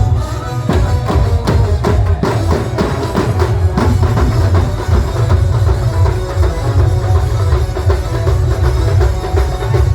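Band music: drums beating with a heavy, steady bass under a held melody, the drum strikes densest in the first few seconds.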